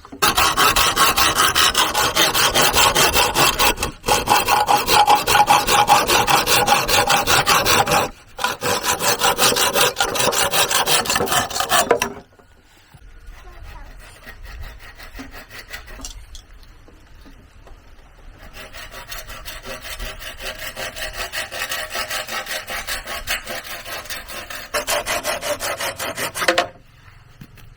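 Hand saw cutting through wood with fast rasping strokes, loud for the first half with two short pauses. It goes quieter for a few seconds, picks up again, then stops abruptly near the end.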